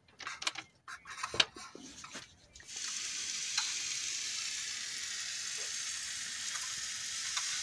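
A spoon clinks and scrapes against a metal camping pan several times in quick, irregular strokes. About three seconds in, these give way to a steady hiss.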